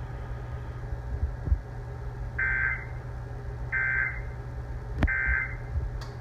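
NOAA Weather Radio SAME digital data tones sounding three short times, about a second and a half apart, over a steady low radio hum. This is the End of Message signal that closes the NWS Required Weekly Test broadcast.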